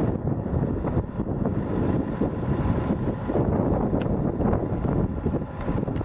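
Wind buffeting the microphone as a rough, wavering low rumble, with a single sharp click about four seconds in.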